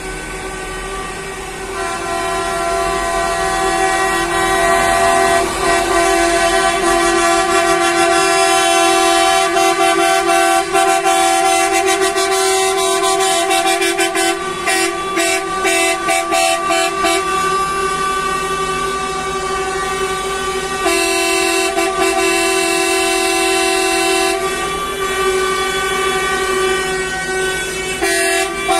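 Air horns of several coaches sounding together in a long, almost unbroken chorus of steady tones, with the mix of tones shifting a few times. The horns are sounded in protest by a convoy of coaches.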